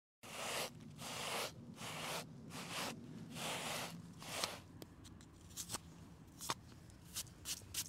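A series of rustling, scraping strokes, about one a second, followed by a scatter of short, light clicks.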